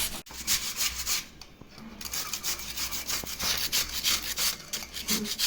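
Pumpkin being grated on a hand grater: quick repeated rasping strokes, pausing briefly a little over a second in before carrying on.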